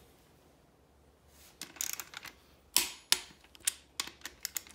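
Craftsman click-type torque wrench ratcheting in short runs of light clicks, with two sharp louder clicks a little past the middle as it reaches its set torque, tightening engine main cap bolts to the final 56 ft-lb.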